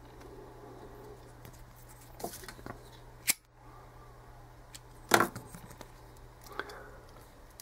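Small handling noises at a fly-tying bench: a few sharp clicks and knocks, the loudest about five seconds in, over a low steady hum.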